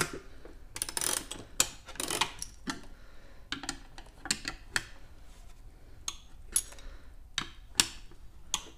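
Metal wrench working a double-nutted mounting stud out of a plastic tail light housing: irregular sharp metal clicks and light scrapes of wrench and nuts, with a short ring after some clicks.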